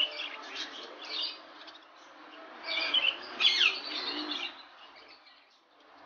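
Caged budgerigars and lovebirds chirping, in two busy bursts with a falling whistle about three and a half seconds in, then quieter near the end.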